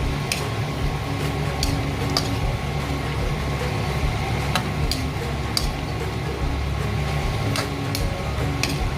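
A cooking utensil clinking and scraping against the pan in short, irregular clicks as the vegetables are stirred in, over a steady low hum.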